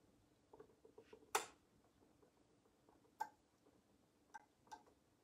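Near silence broken by four faint, short clicks, the loudest about a second and a half in: small handling noises of a paintbrush and a porcelain egg being worked by hand.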